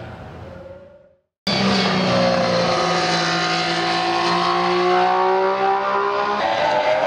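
Sauber C34's Ferrari 1.6-litre V6 turbo Formula 1 engine fading away, then a moment of silence. About a second and a half in, another Formula 1 car's engine cuts in suddenly and loudly at high revs, its pitch drifting up and down.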